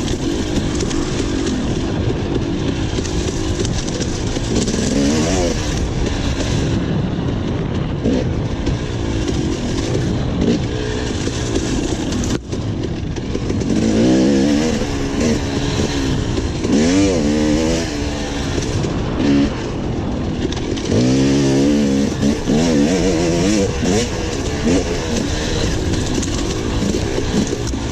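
Enduro dirt bike engine heard from an onboard camera, revving up and falling back over and over as the rider accelerates and shuts off along the trail, over a constant rush of wind and terrain noise, with a sharp knock about halfway through.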